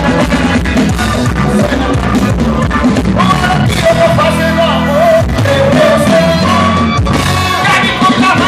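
Loud live band music with a steady beat and bass, and a melody line sung or played over it.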